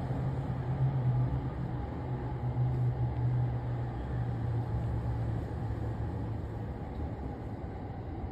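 Running noise of a Chuo Line commuter train heard from inside the car as it creeps slowly forward after an emergency stop: a steady rumble with a low hum that fades away a little after six seconds in.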